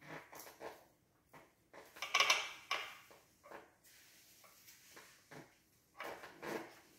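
Pencil scratching on paper in short, irregular strokes, with light knocks and rustles against the tabletop. The loudest scratching comes about two seconds in.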